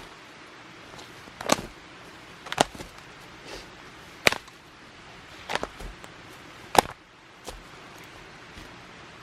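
Sharp knocks and cracks of dry wood being worked: five loud strikes at uneven intervals about a second or so apart, with a few fainter ones between.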